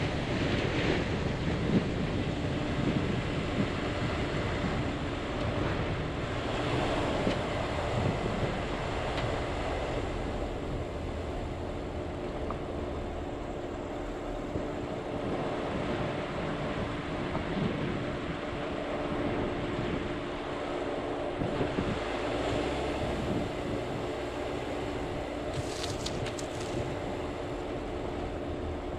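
A vehicle driving on a dirt road: steady tyre and road rumble with a constant engine hum, and a brief hiss near the end.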